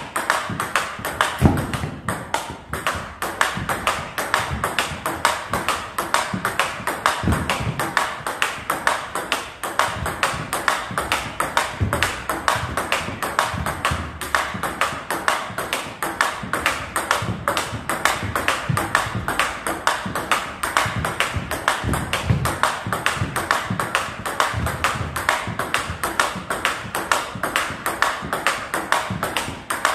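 Table tennis rally: a celluloid-type ball clicking off rubber-faced paddles and bouncing on the table in a quick, steady rhythm of several strikes a second.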